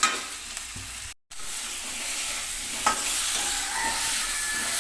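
Potatoes frying in oil in a kadai, sizzling steadily while a spatula stirs and scrapes them, with a few sharp knocks. The sound cuts out for a moment about a second in.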